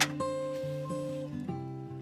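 Background music: acoustic guitar strumming, with a strum at the start and a change of chord about one and a half seconds in.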